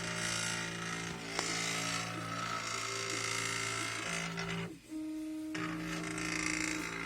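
3D printer running, its stepper motors whining in steady tones that jump to new pitches as the moves change. There is a brief pause about five seconds in.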